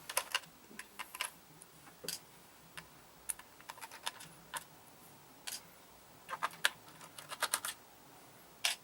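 Irregular light clicks and taps of small laptop screws and a screwdriver being handled, some in quick clusters of three or four.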